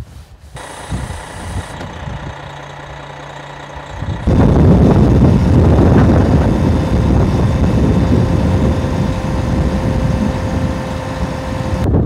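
Heavy truck engine idling: a quieter rumble at first, then, from about four seconds in, a loud, steady rumble.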